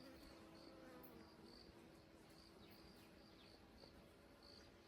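Faint outdoor insect sounds: a short, high chirp repeating about every half second, over a faint low hum in the first couple of seconds.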